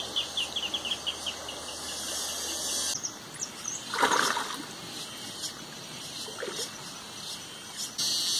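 A hooked fish splashes at the water's surface once, loudly, about four seconds in. Near the start a bird gives a quick run of short falling chirps.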